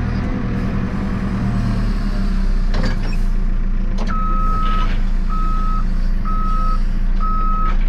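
JCB 3CX backhoe loader's diesel engine running steadily, with a knock or two, then its reversing alarm starting about halfway through: a high single-pitch beep repeating about once a second as the machine backs up.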